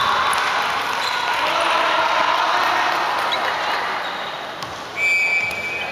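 A volleyball being bounced on a wooden gym floor before a serve, over the chatter of players and onlookers in a large hall. About five seconds in, a referee's whistle gives one short, steady blast.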